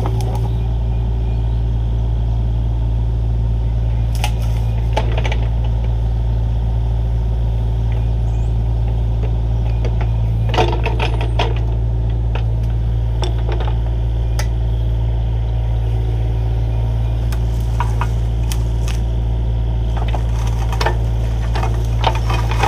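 Diesel engine of heavy equipment running steadily, with scattered sharp cracks and snaps over it, mostly in the middle and last third.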